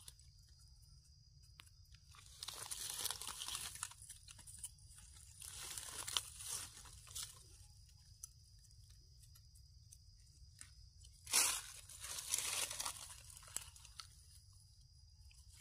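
Knife scraping and cutting soil away from freshly dug Amanita mushroom buttons, with dry leaf litter crunching, in three main scratchy bursts.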